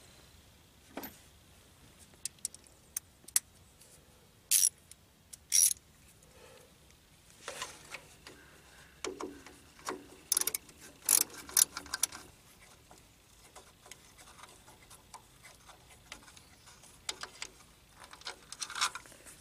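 A wrench clicking and clinking on metal in short bursts while the small 8 mm nut holding a generator's voltage regulator is undone. There are quiet stretches between the bursts, with clusters a few seconds in, around the middle and near the end.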